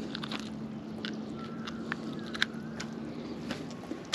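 Steady low hum of a small electric motor on a boat, unchanging throughout, with a few soft clicks from handling.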